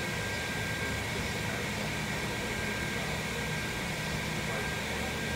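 Steady mechanical hum and hiss with a faint high whine held on one pitch throughout, typical of the ventilation and lighting machinery of a large indoor arena.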